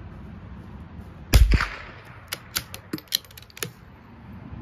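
A single shot from a scoped bolt-action .22 LR rifle, one sharp crack a little over a second in, followed by a quick series of light metallic clicks as the bolt is worked.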